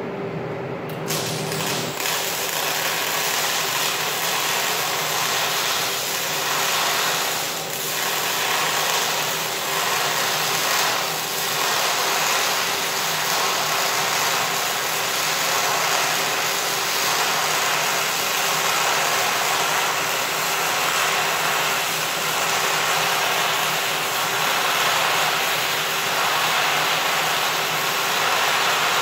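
MIG welding arc on steel, crackling and hissing steadily as a bead is laid; it strikes about a second in and runs on continuously.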